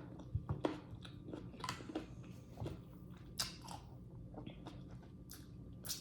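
A person chewing juicy fruit close to the microphone: irregular wet smacks and soft crunches, a few sharper ones about two seconds in, again mid-way and near the end.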